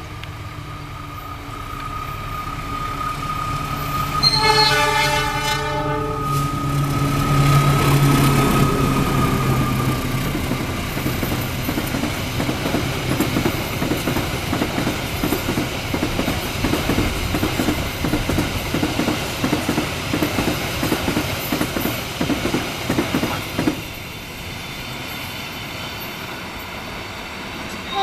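A diesel train passing close by: the locomotive's engine drone grows as it approaches, and its horn sounds once for about two seconds about four seconds in. The cars follow with a fast, even clickety-clack of wheels over the rail joints, which stops suddenly near the end.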